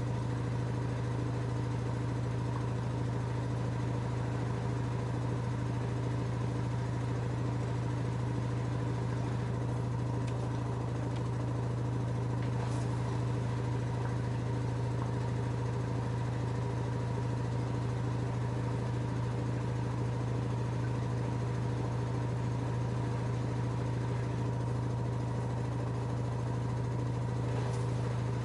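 LG F10A8HDS5 front-loading washing machine spinning at a steady high speed: a constant hum with a strong low tone that does not change.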